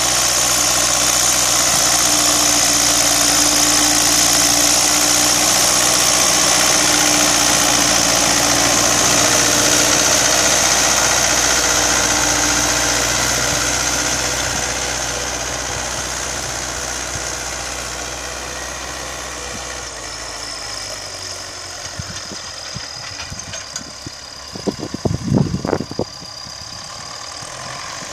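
MTZ-82 tractor's four-cylinder diesel running steadily as it pulls a spring-tine cultivator through the soil, loud at first and fading over the second half as the tractor moves away. A few short low thumps come near the end.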